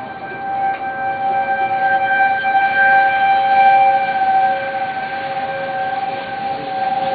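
Outdoor tornado warning siren sounding a steady, sustained two-pitch tone, the alarm for a tornado warning. It swells louder about three to four seconds in, then eases off.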